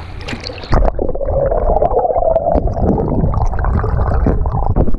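Water gurgling and sloshing around an action camera's microphone, muffled and rumbling, with scattered short knocks.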